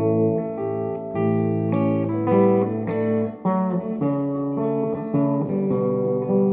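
Guitar playing an instrumental passage between sung verses of a folk song, ringing chords and single notes changing about once a second, with no singing.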